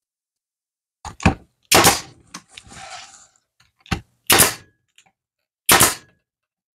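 Pneumatic nailer driving three nails into wood, each shot a sharp bang, with lighter clicks before the first two and a short hiss of air after the first.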